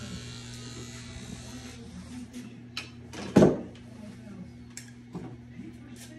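Electric hair clippers humming steadily, with a hiss over the hum that stops about two seconds in. A short loud sound comes a little after halfway, and a few light clicks follow.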